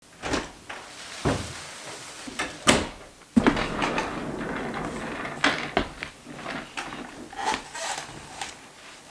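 Knocks and clicks with rustling as an office chair is pulled about and sat down in, the sharpest knocks a few seconds in.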